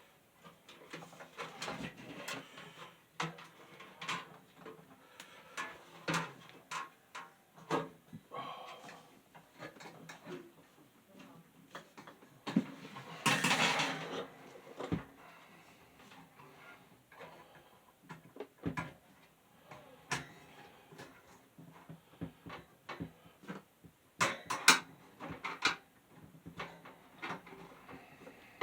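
Box fan parts and tools being handled: scattered clicks, taps and light clatter, with a second or so of scrubbing or wiping noise about halfway through and a few sharper knocks near the end. The fan motor is not running.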